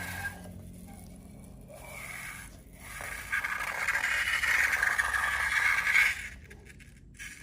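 Scraping of slime-making materials being worked by hand, quieter at first and loudest from about three to six seconds in, then dying away.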